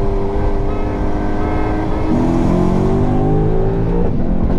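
Lexus IS F's V8, with aftermarket headers and a Borla full exhaust, heard from inside the cabin under hard acceleration. The pitch drops sharply at an upshift about two seconds in, climbs steadily, then drops again at another shift about four seconds in.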